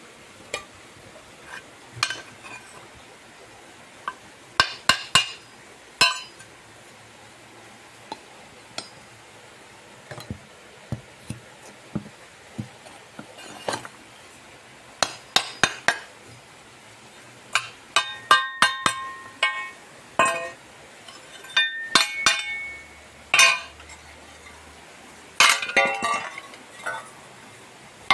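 Freshly cast aluminium pieces being knocked out of a sand mold with a metal tool: scattered sharp clinks and knocks, coming in quicker clusters in the second half, a few of them ringing briefly.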